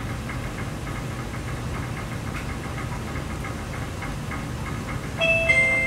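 Steady low machine hum with light, quick ticking, about four ticks a second. About five seconds in, steady electronic beep tones come in over it.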